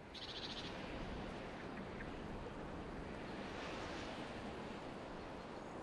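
Steady soft rushing noise of outdoor ambience, even and unbroken, with a short burst of fast high ticking at the very start.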